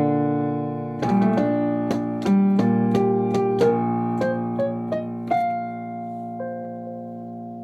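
Piano music: a quick run of struck notes in the first half, then a few single notes over a held chord that rings on and slowly fades.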